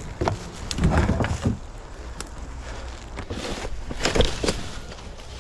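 Irregular thumps, knocks and scuffs of a person moving about on foot and handling gear, loudest about a second in and again around four seconds in.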